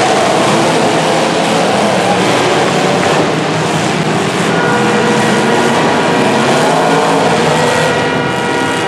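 Demolition derby car engines running loud and unmuffled, revving continuously as the cars drive in the arena.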